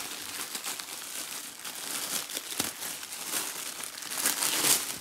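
Thin plastic bag crinkling and rustling as it is pulled and ripped open by hand, with the loudest burst near the end.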